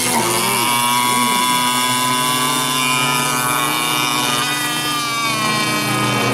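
Small racing boat's engine running at high revs, a steady high-pitched whine whose pitch dips briefly and comes back up near the end.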